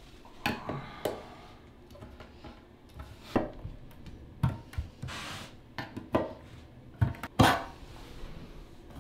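A metal gallon paint can having its lid pried up with a flat metal tool worked around the rim: a series of irregular metallic clicks and short scrapes, the loudest about seven and a half seconds in.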